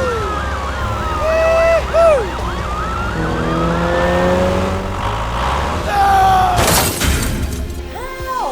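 A siren wailing, its pitch sweeping up and down quickly and over and over, over a steady low engine drone. A short burst of noise comes near the end.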